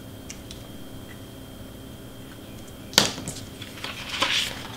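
Quiet room tone with faint ticks from a craft knife working on cardstock. About three seconds in, a sharp tap as the craft knife is set down on the cutting mat, followed by a rustle of the cardstock sheet being handled near the end.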